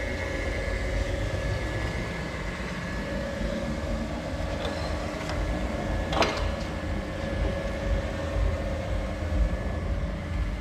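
Pipe seaming machine running, its drive giving a steady whine over a low rumble as the seaming carriage travels along a round metal pipe. There is one sharp click about six seconds in.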